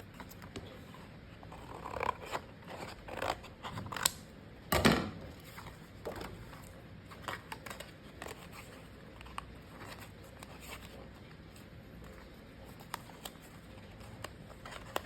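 Paper and cardstock being handled on a desk: rustling and a string of short clicks and taps, busiest about two to five seconds in with the loudest just before five seconds, then a few faint ticks.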